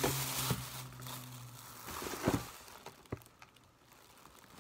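Plastic shopping bag crinkling and rustling as a cardboard gingerbread house kit box is pulled out of it and handled. The rustle is loudest in the first couple of seconds, with a few light knocks from the box later, then dies down.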